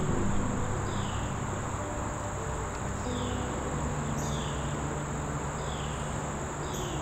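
Steady high-pitched drone of insects, with a short falling chirp repeating about once a second. Under it sit soft low held notes of background music.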